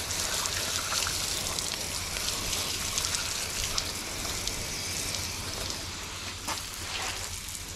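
Water spraying steadily from a pistol-grip garden hose nozzle onto a horse's wet belly, splattering off the coat and onto the paving below with an even hiss.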